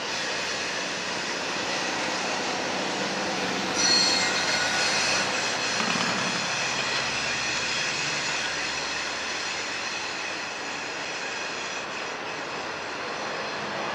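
Loaded freight train's covered hopper cars rolling past on a curve: a steady rumble of steel wheels on rail with high-pitched wheel squeal, loudest about four seconds in.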